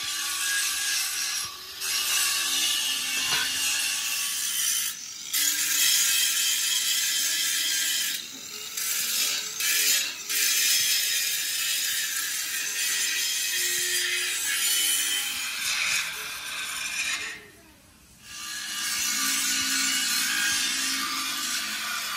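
A power tool working steel in a fabrication workshop, making a loud, harsh, hissing grind that stops briefly several times and pauses for about a second near the end.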